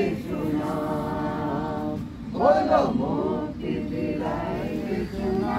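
A small group singing together unaccompanied, in long held notes that move from one note to the next. One voice close to the microphone stands out louder about two and a half seconds in.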